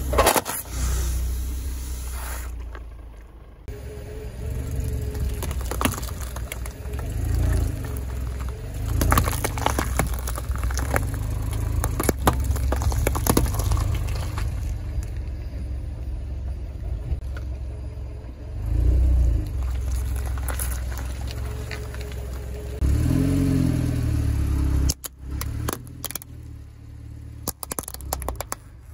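A car creeping over things on asphalt, its tyre crushing soda cans with balloons, cucumbers and a plastic toy exhaust pipe. Under it runs the low rumble of the car, with clusters of sharp cracks and crunches as the objects give way.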